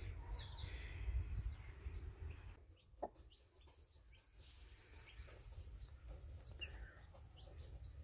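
Newly hatched Cheonggye (green-egg chicken) chicks peeping faintly in short, scattered high chirps under the brooding hen. There is a low rumble in the first couple of seconds and a single click about three seconds in.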